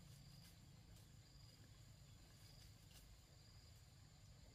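Near silence: faint background ambience with a thin, high, steady tone and a few soft ticks.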